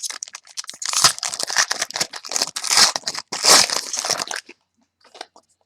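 Wrapper of a 2011 SP Authentic Football hobby pack being torn open and crinkled, a dense crackling that stops about four and a half seconds in, followed by a few faint ticks as the cards come out.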